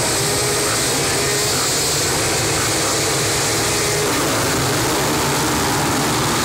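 A pack of motocross bikes revving together at the start gate, then launching off the line near the end.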